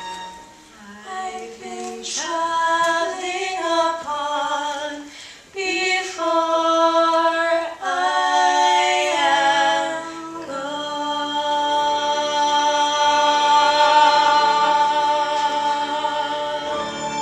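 Two female voices singing a duet, a run of short sung phrases that settle into a long held note from about ten seconds in.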